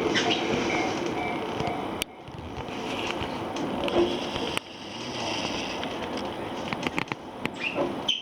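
Train running on rails: a steady rolling rumble of wheels on track, broken by abrupt drops about two seconds and four and a half seconds in.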